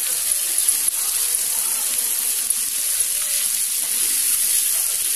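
Chicken pieces sizzling steadily as they fry in oil in a pan, with a few light clicks of a metal spatula turning them.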